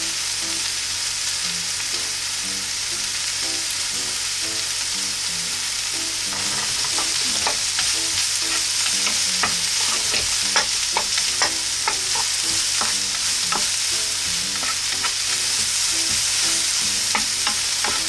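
Sliced onions and maitake mushrooms sizzling in a coated frying pan while being stirred with a wooden spatula. From about six seconds in, the spatula clicks and scrapes against the pan more and more often.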